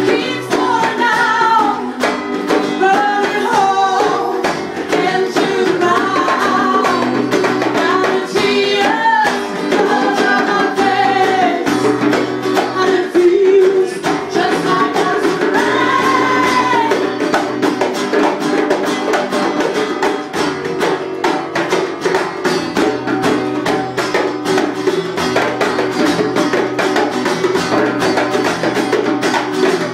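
Live acoustic band: an acoustic guitar strummed under two djembes played by hand, with a woman singing. Her singing drops out about two-thirds of the way through, leaving the guitar and the quick drum strokes.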